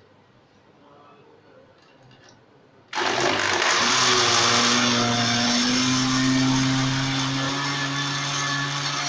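Electric countertop blender switched on about three seconds in, after a few faint clicks, its motor running loud and steady with a constant low hum as the blades crush frozen watermelon chunks with milk and cream.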